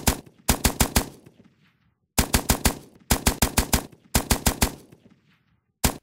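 Typewriter sound effect: several quick bursts of sharp key-strike clacks, each a handful of strikes, separated by brief silences, ending with a final pair of clacks.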